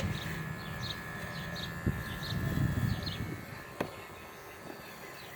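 Electric pet hair clippers running as they shave a dog's thick coat, with a rougher stretch around the middle and two sharp clicks. Faint chirps of birds repeat in the background.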